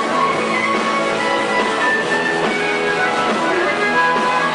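Live blues-rock band playing: two harmonicas played through hand-held vocal microphones, holding long notes over electric guitar.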